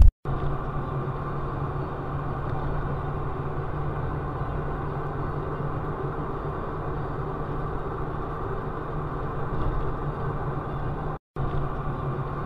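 Steady drone of a car's engine and tyres heard inside the cabin through a dashcam, with a constant low hum. The sound drops out for a moment about eleven seconds in, then the same drone resumes.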